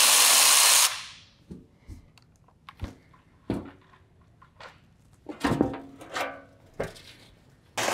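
Cordless power driver spinning for about a second to back out a skid-plate bolt, followed by scattered light knocks and clicks as the metal skid plate is handled and lowered.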